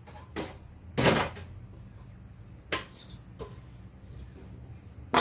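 Several sharp knocks and clatters of kitchenware being handled, such as a steamer pot and its lid, the loudest about a second in, over a low steady hum.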